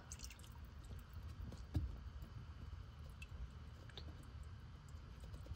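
Liquid laundry detergent poured from a plastic measuring cap into the water of a washer tub: faint soft squishy pouring and a few small clicks, with one small thump a little under two seconds in, over a low rumble.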